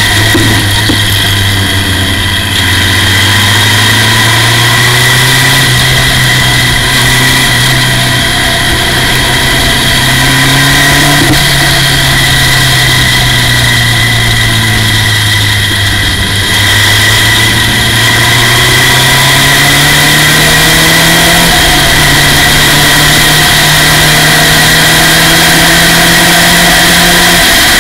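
Formula Ford racing car's engine at speed, heard from the cockpit, its pitch climbing and dropping again and again as the car accelerates and slows for the corners. A steady high whine sits above the engine note.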